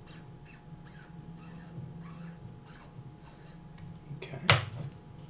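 Seiko 6139 automatic movement being wound by a thumb pushing its exposed rotor round, in repeated short scratchy strokes about three a second. A sharp click about four and a half seconds in is the loudest sound.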